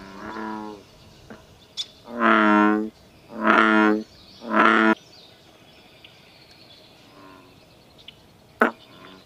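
American bullfrog calling: a faint deep call at the start, then three loud, deep, droning croaks about a second apart, each under a second long, made with its yellow throat sac inflated. A brief sharp click near the end.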